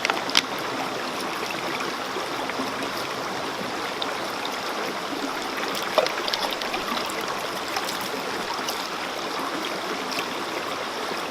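Mountain stream flowing steadily, with a sharp click about half a second in and another about six seconds in.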